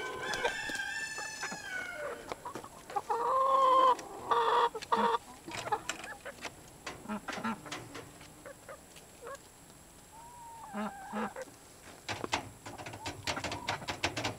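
Backyard chicken flock: a rooster crows once at the start, then hens cluck and call now and then, over many scattered clicks and rustles that grow busier near the end.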